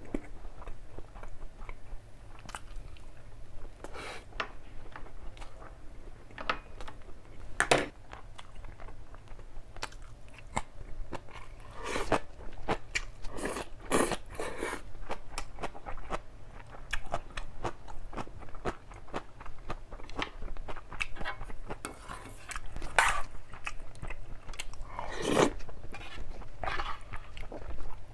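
A person chewing and biting food close to the microphone, eating black-bean-sauce instant noodles with green onion kimchi and Spam: a steady run of short mouth clicks and bites, with a few louder bites scattered through.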